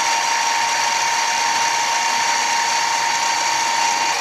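Mini mill spindle running at steady speed with a high whine, driving a countersink bit that cuts a starting divot in a metal bar.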